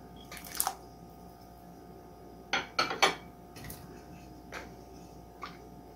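A ceramic dish clinking and knocking against a steel cooking pot as dried plums and tamarind are tipped into the water. There is one knock about half a second in, a quick cluster of the loudest knocks at about two and a half to three seconds, and a few lighter clinks after.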